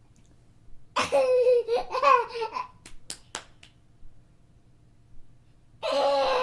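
A young child laughing, one burst of giggling lasting about a second and a half, followed by a few short clicks, then another loud burst of the child's voice starting near the end.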